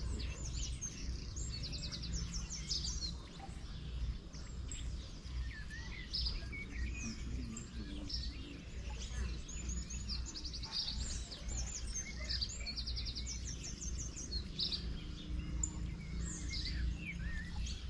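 Several small birds chirping and calling over one another, with a few fast trills of rapidly repeated high notes, over a steady low rumble.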